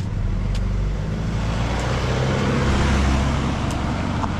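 A motor vehicle passing close by: its engine hum and tyre noise build up, peak about three seconds in, then ease off.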